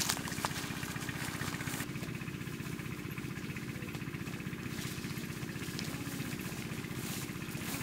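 Small engine running steadily at an even speed, with a couple of light clicks in the first half second.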